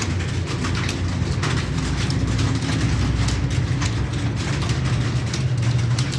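Computer keyboard typing, irregular key clicks several times a second, over a steady low machine hum.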